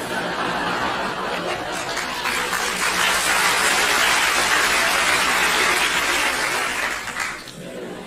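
A crowd laughing and applauding, swelling about two seconds in and dying down near the end.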